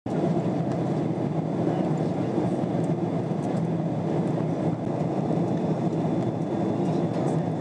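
Steady cabin noise inside a Boeing 777-200 airliner on descent: an even, low rumble of the jet engines and the airflow over the fuselage, with a faint steady hum under it.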